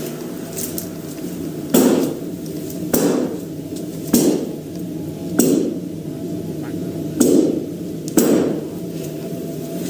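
About six heavy knocks or bangs, roughly a second or so apart, over a steady low hum. This is the unexplained knocking the woman keeps hearing in the house while she is home alone.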